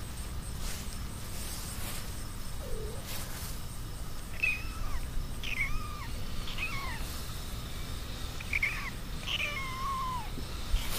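Kitten mewing: a series of about five short, high-pitched mews in the second half, each falling in pitch.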